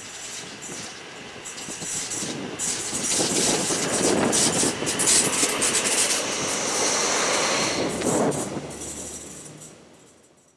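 Mermec TIPO4 track-measuring vehicle passing close by at speed, wheels running on the rails with a rapid clatter. It swells as the vehicle approaches, is loudest as it passes, then fades as it runs away, and the sound cuts off abruptly at the end.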